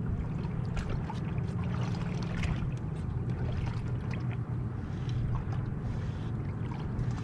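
Water lapping and slapping against a boat hull, a steady low wash with scattered light clicks and taps throughout.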